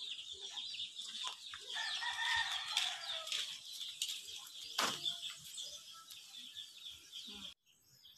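Yard chickens clucking, with a rooster crowing for about a second and a half a couple of seconds in, over steady high chirping. One sharp click comes about five seconds in, and the sound cuts out shortly before the end.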